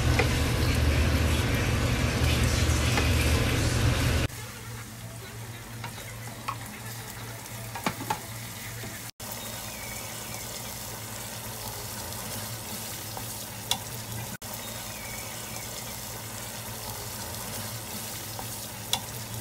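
Pork frying in hot oil in a skillet, sizzling steadily as it is stirred with a wooden spoon. After about four seconds the sizzle drops quieter as the meat fries in red chili sauce, with a few light knocks of the spoon against the pan.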